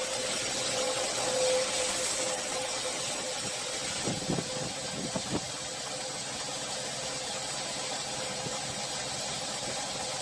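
Bench-mounted belt sander running steadily, its electric motor humming under the hiss of the belt, with a few short knocks of wood being handled about four to five seconds in.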